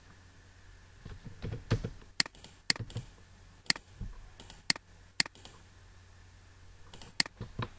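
Sharp, irregularly spaced clicks of a computer mouse and keyboard, about eight in all, with a few softer taps between them.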